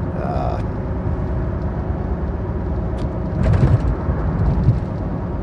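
Steady low rumble of a car in motion, heard from inside the cabin, with a brief louder bump about three and a half seconds in.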